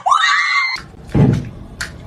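A cat's high, rising meow that cuts off sharply, followed by a noisy shuffle and a dull thump about a second in.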